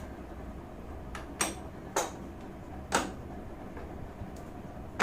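A few sharp metallic clicks and clinks about a second apart, with the last one the loudest. They come from a spanner working on the clutch centre nut of a Royal Enfield Himalayan while the clutch basket is held locked, as the nut is being loosened.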